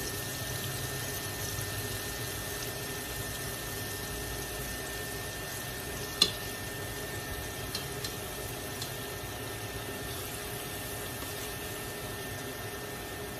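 Hot oil bubbling and sizzling steadily as floured pieces deep-fry in a steel pot. A little under halfway through, metal tongs knock sharply against the pot as a new piece is lowered in, followed by a few lighter clicks.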